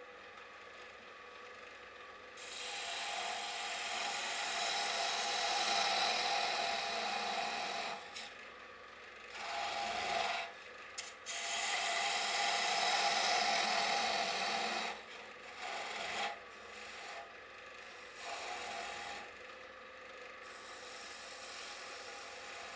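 A turning tool cutting a small wooden piece spinning on a lathe: a scraping, hissing cut in several passes with short pauses between them, the later passes shorter and quieter, over the lathe's faint running.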